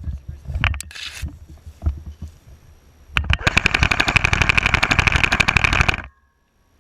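Scattered clicks and knocks, then about three seconds in an airsoft rifle fires a long full-auto burst at about fifteen shots a second, which cuts off suddenly after roughly three seconds.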